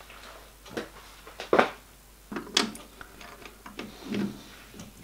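A series of sharp knocks and clicks from metal tools being handled at a metal lathe with a four-jaw chuck. The loudest come about one and a half and two and a half seconds in, with a duller thud near the end.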